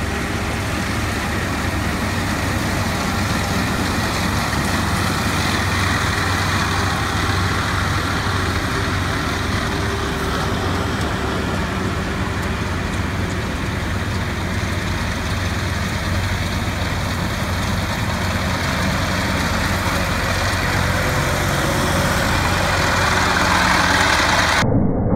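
Farm tractor engine running steadily while pulling a ROC RT630 hay merger through cut hay, growing a little louder toward the end as it comes closer.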